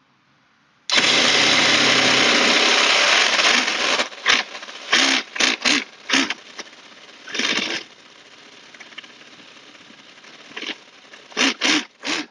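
Conley Clone model V8 engine being started: from about a second in, some three seconds of loud continuous cranking, then a string of short bursts as it is turned over again and again.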